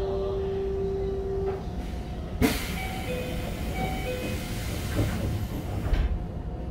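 Interior of a stationary Keikyu 1500 series commuter train: a steady tone stops about a second and a half in, then, with a click about two and a half seconds in, a loud hiss of released compressed air starts and cuts off sharply about three and a half seconds later, over a low rumble.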